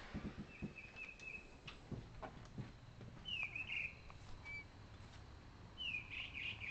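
A single bird singing at night: short chirped and trilled phrases with pauses between them. A few faint knocks sound in the first couple of seconds.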